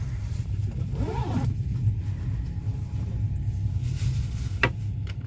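Steady low rumble of a moving passenger train heard inside a platzkart sleeper carriage. A short tone rises and falls about a second in, and a single sharp click comes near the end.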